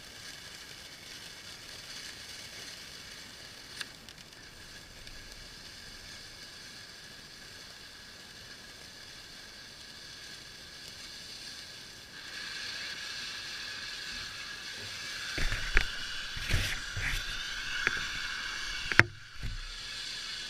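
Firework fountain spraying with a steady hiss that grows louder about twelve seconds in, with a few sharp pops near the end.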